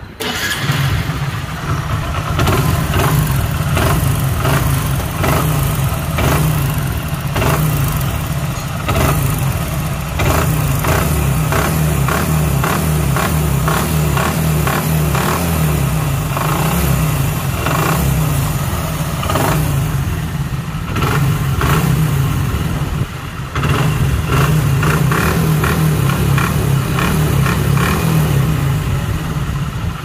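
Hero Super Splendor's single-cylinder four-stroke engine starting and running with blips of the throttle, with a heavy hammer-like knocking throughout, a rumbling 'gadgad' rather than a light tick. The mechanic traces the knock to play in a loose crankshaft.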